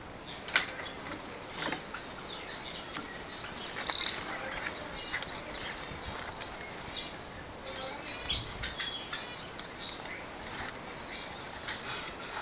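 Small birds chirping in many short, scattered calls, with a few light clicks, the loudest about half a second in.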